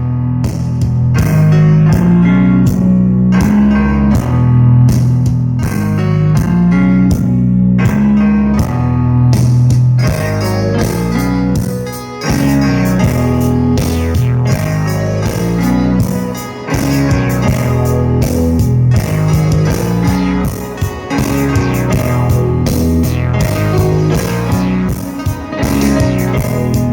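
Guitar-driven rock music with a heavy bass line playing loudly on a Sony SS-XB88V super woofer speaker in a bass test. It dips briefly twice, around twelve and sixteen seconds in.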